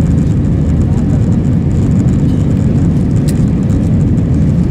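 Steady rumble of an Airbus A319's jet engines and rushing airflow, heard inside the passenger cabin as the airliner climbs after takeoff.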